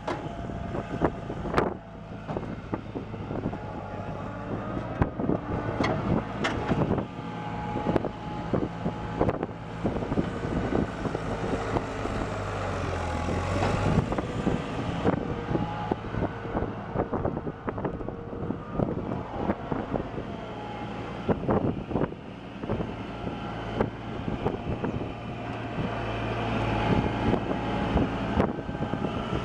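New Holland LS180 skid steer's diesel engine running steadily, with frequent clanks and knocks from the machine as it works. The engine note dips briefly about halfway through.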